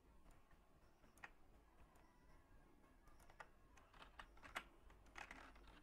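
Faint typing on a computer keyboard: a dozen or so scattered key clicks at an uneven pace.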